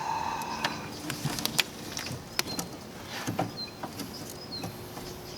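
Scattered light clicks and taps of hands working a replacement D3S HID bulb into a car's headlight housing. Small chirps, like a bird, sound in the background in the second half.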